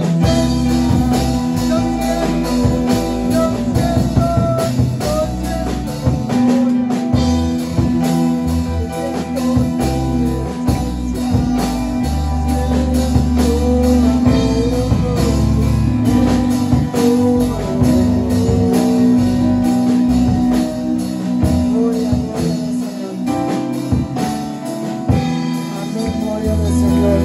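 Live worship music from a small church band: a man singing a melody into a microphone over a drum kit and guitar accompaniment.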